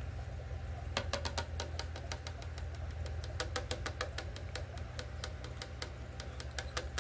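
Aquarium equipment running: a steady low hum with quick, irregular clicking that starts about a second in and comes several times a second, from the air-driven sponge filter bubbling.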